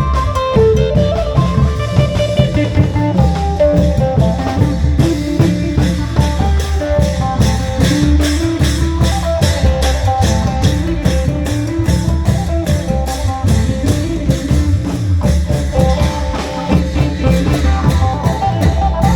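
Isan folk music: a phin, a plucked Thai lute, playing a quick melody over a steady beat of klong yao long drums.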